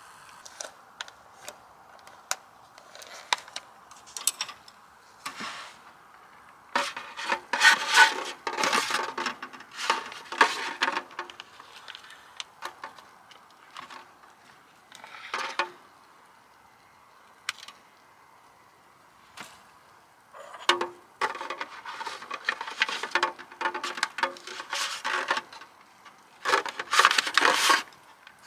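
Tableware and cooking utensils clinking, tapping and scraping in irregular bursts, the handling noises of preparing or eating a meal; the busiest clatter comes about a quarter of the way in and again in the last third.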